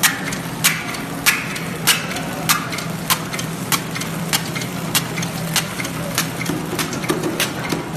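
Nitrogen-flushing flow-wrap packing machine running after start-up: a steady motor hum with a sharp click about every 0.6 seconds and lighter ticks between, as it cycles through each wrapped rice cake.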